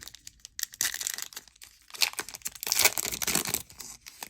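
A trading card pack wrapper being torn open and crinkled: two stretches of rapid crackling, the second longer and louder.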